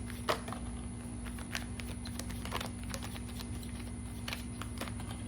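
Tarot cards being drawn and laid down: a scattering of irregular soft taps and flicks over a steady low electrical hum.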